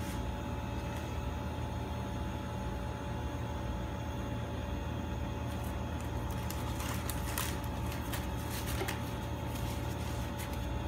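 A steady low machine hum with a faint constant tone over it, and a few light clicks around the middle.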